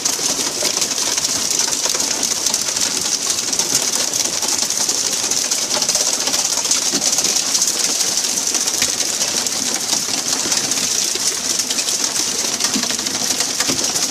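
Steady hiss of water spraying and splashing along a fishing boat's hull, with many small scattered clicks and knocks.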